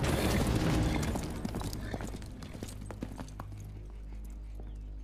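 Horse's hoofbeats on hard ground, a dense clatter at first, then thinning to separate strikes and fading as the horse draws away. A low steady hum runs underneath.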